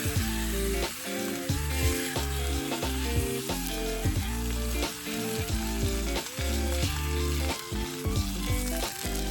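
Food frying in a hot pan, a steady sizzling hiss, with background music playing underneath.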